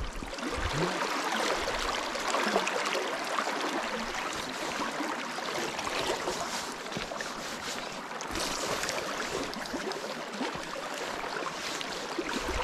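River water running, a steady even rush of current with a faint burble.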